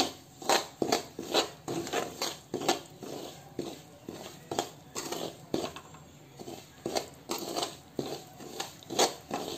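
Perforated steel ladle scraping and knocking against a metal kadhai while stirring semolina roasting in ghee, in irregular strokes about two to three a second. The semolina is being stirred constantly so it does not stick to the bottom.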